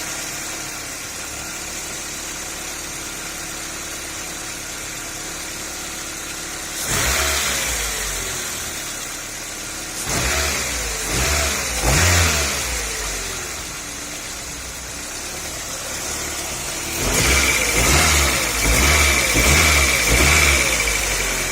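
Nissan Primera P10's four-cylinder engine, just fitted with a new timing chain, running on LPG: idling steadily, then revved in short blips, once about seven seconds in, twice more a few seconds later, and in a quick series near the end. A high steady whine joins in during the last blips.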